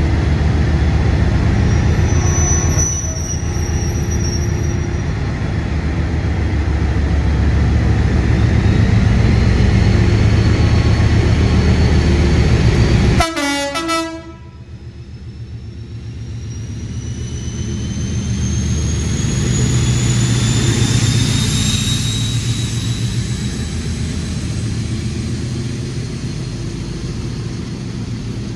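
Diesel freight locomotive passing with its engine running loudly. The sound cuts off suddenly about halfway through, leaving a quieter rumble with a thin whine that rises in pitch.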